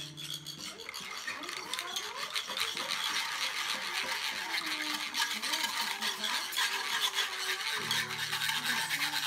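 Children's small hand percussion played all together: wooden sticks scraped and tapped on rasping instruments, making a continuous dry scraping clatter. A low held chord of music comes in near the end.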